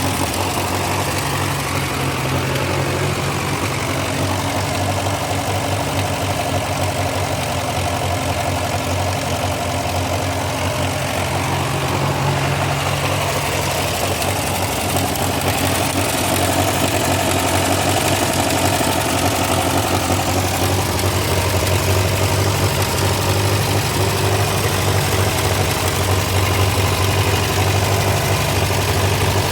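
Massey Ferguson TO35 tractor engine running steadily at idle with a ticking/knocking noise that appeared after its rebuild. It runs a little louder from about halfway through.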